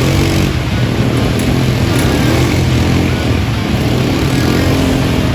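Quad bike (ATV) engine running steadily with a low, even drone.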